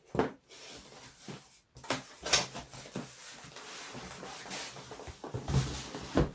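Packaging rustling with several sharp knocks and clatters as kit parts are lifted out and handled, the loudest knock about two seconds in.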